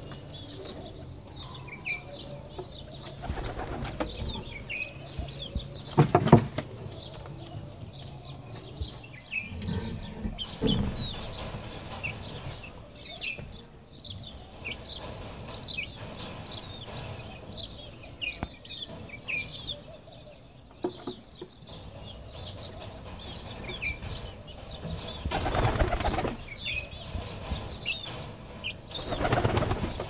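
Pigeons' wings flapping in several short bursts, the loudest about six seconds in and a longer run near the end, over frequent high chirping of small birds.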